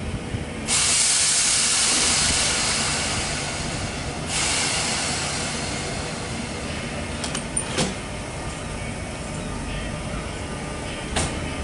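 Northern Class 319 electric multiple unit moving off from the platform. A loud hiss of compressed air lasts about three and a half seconds near the start, then the train runs on with a low rumble and a few sharp clicks about seven and eleven seconds in.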